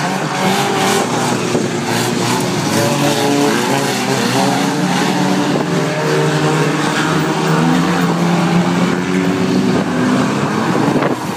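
Several banger racing cars' engines revving together as they race round the track, with the engine notes rising and falling as drivers accelerate and lift off.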